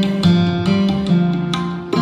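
Music: an acoustic guitar picking out a melody, a new note about every half second.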